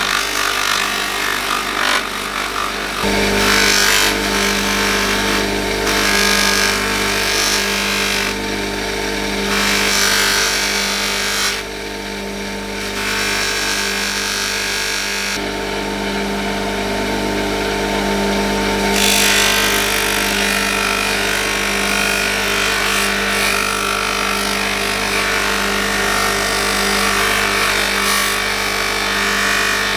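Bench buffing machine with a cloth polishing wheel running, its motor humming steadily while polishing compound and then a knife handle's metal end cap are pressed against the spinning wheel. The contact adds a scraping hiss that comes and goes, dropping away in a few short stretches.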